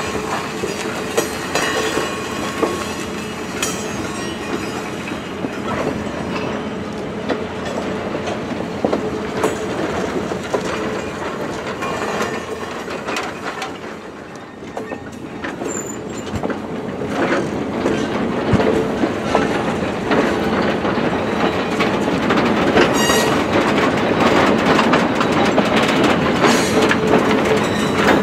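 Passenger train cars rolling past on the rails, with steel wheels clacking and knocking over the track. The sound dips briefly about halfway through, then grows louder again toward the end.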